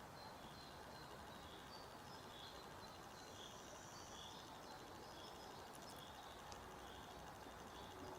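Faint forest ambience: a soft, high chirp repeating roughly once a second over a low, even hiss.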